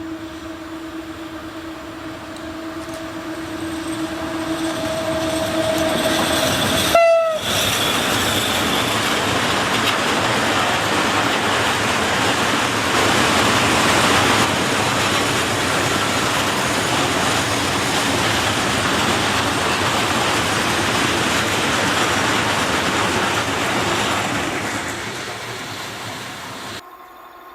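ET22 electric freight locomotive sounding its horn in one long, steady blast for about seven seconds as it approaches. Its train of coal wagons then rolls past with a steady rail rumble and wheel clatter, fading out before cutting off abruptly near the end.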